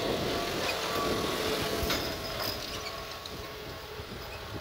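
John Deere 5210 tractor's diesel engine working steadily under load as it pulls a disc harrow through tilled soil, growing fainter from about two seconds in as the tractor moves away.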